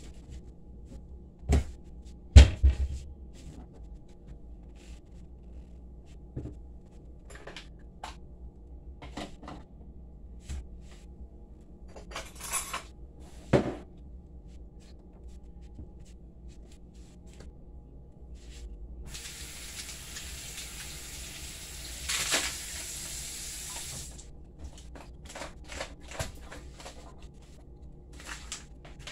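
Kitchen counter handling sounds: scattered knocks and clatter of containers and dishes, the loudest two thumps a couple of seconds in. Past the middle a kitchen tap runs for about five seconds, a steady hiss that starts and stops abruptly.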